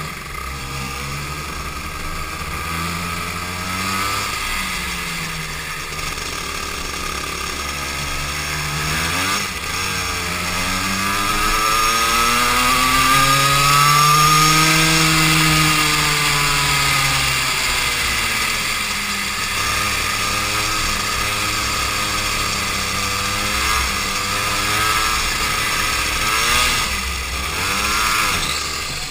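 Go-kart engine heard on board at racing speed, its pitch climbing to a peak about halfway through and falling back, with smaller rises and dips either side as it speeds up on straights and slows for corners. A steady hiss runs underneath.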